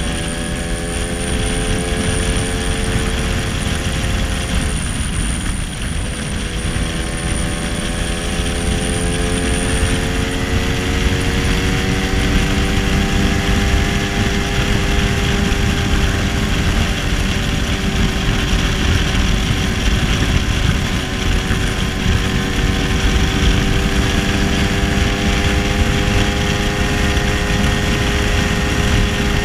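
Two-stroke engine of a 1966 Lambretta SX scooter with a 225 Mugello kit, running at speed under the rider. The note drops about four seconds in, then climbs steadily and holds, with wind rumbling on the microphone.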